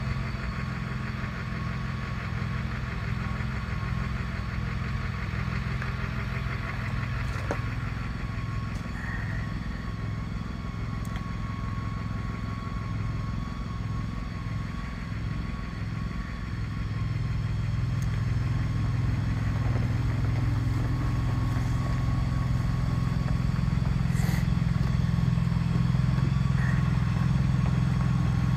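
Engine of the machine moving a shed on wheels, running steadily at an even low pitch with a faint steady whine above it; it grows louder about two-thirds of the way through.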